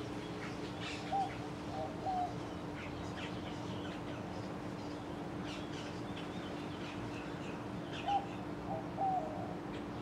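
1988 TAT CFA2PC ceiling fan running with a steady motor hum. Twice, a bird calls over it with a short phrase of a few notes, the first about a second in and the second about eight seconds in.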